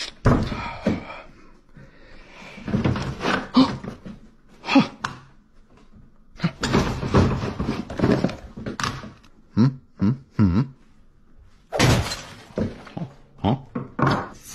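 Plastic desk calculators being pulled out of a drawer and set down on a wooden table: a busy, irregular run of thunks and clatters.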